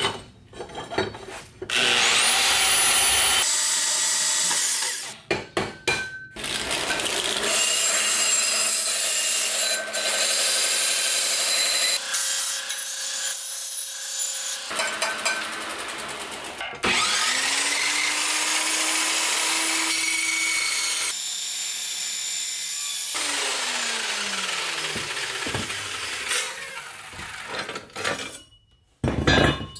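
Quick cuts of shop power tools working metal exhaust tubing: a portable bandsaw cutting the tube and a belt grinder dressing the cut ends. A tool motor spins up a little past halfway, runs steadily for a few seconds, then winds down.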